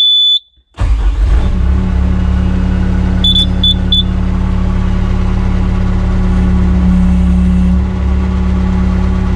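Bobcat S185 skid-steer loader's diesel engine starting up under a second in and then running steadily. There is one short electronic beep just before it starts and three quick beeps about three seconds in.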